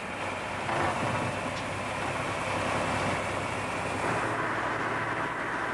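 Steady mechanical running noise of machinery, even and without a clear rhythm, shifting slightly in tone about four seconds in.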